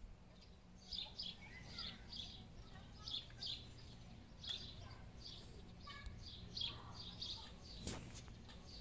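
Small birds chirping outdoors: many short high chirps, a few each second, over a faint steady low hum.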